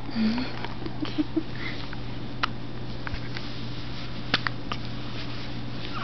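A one-month-old baby hiccuping: a handful of short, sudden hiccups a couple of seconds apart, some carrying a tiny squeak of voice, over a steady low hum.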